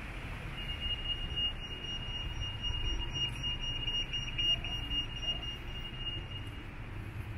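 A high-pitched electronic beeping tone, held for about six seconds, over a steady low rumble of street traffic.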